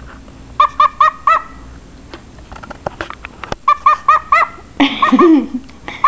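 Cockatiel barking: short, harsh, pitched calls in quick runs of four or five, about four a second, three runs in all.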